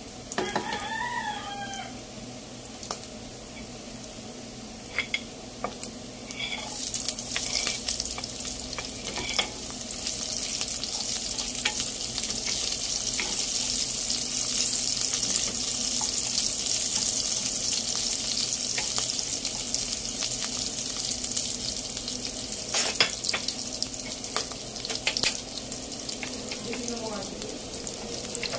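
Pork belly pieces and ginger strips sizzling in hot oil in a nonstick pan, with a wooden spatula stirring and now and then clicking against the pan. The sizzle grows much louder about six seconds in, as the ginger goes into the oil, and stays strong.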